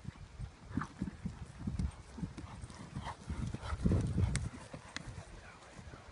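Horse's hooves thudding on grass turf at a canter, an uneven run of dull beats, loudest about four seconds in as the horse passes close.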